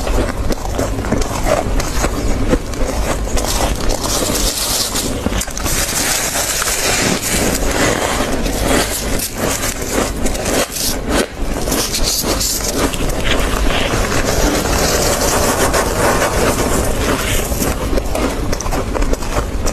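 Gloved hand scraping and scooping loose freezer frost in a chest freezer, a dense crunching and crackling, with frost crunched between the teeth as it is eaten.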